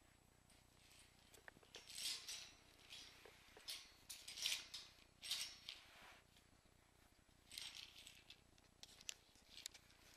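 Cairn terriers scuffling in play: faint, short bursts of scratchy scrabbling from paws and claws on a rug and a tiled floor, coming several times and loudest around the middle.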